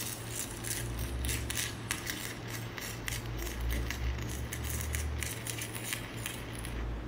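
Stick-welding arc crackling steadily as a bead is run, over a steady low hum.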